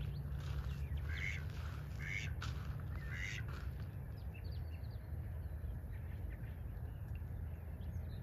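Mallards quacking three times, about a second apart, in the first few seconds. Faint short high chirps follow, over a steady low rumble.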